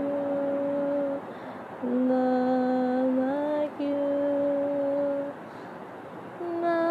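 A voice humming a slow gospel melody in long, steady held notes, with a short break about a second in and a longer one near the end.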